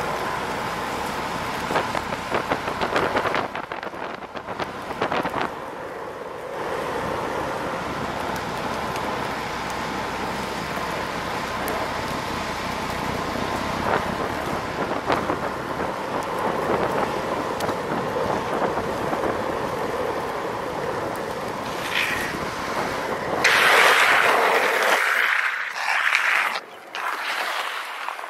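Wind buffeting the microphone over the steady roar of longboard wheels rolling fast on asphalt during a downhill run. A louder rushing stretch comes about 24 seconds in, and the low rumble drops away near the end.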